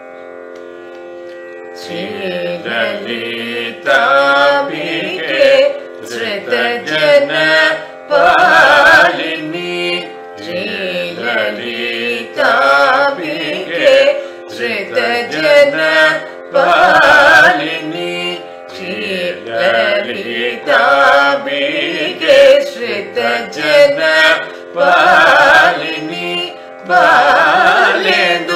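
Carnatic song in raga Hindolam, khanda chapu tala: a voice sings long phrases full of sliding, shaken ornaments over a steady drone. The first two seconds are only held drone tones before the singing enters.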